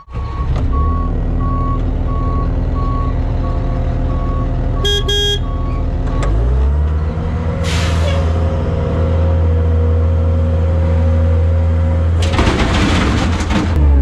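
Diesel loader and dump truck working: a backup alarm beeps steadily over a running diesel engine, then stops about six seconds in as the engine revs up and holds. A short horn-like toot comes just before that, a brief hiss near eight seconds, and a loud rattling rush near the end.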